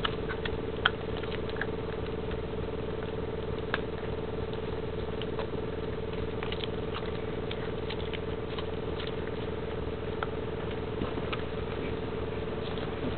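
Golden Retriever puppy gnawing on a rawhide chew: irregular small clicks and scrapes, over a steady low hum.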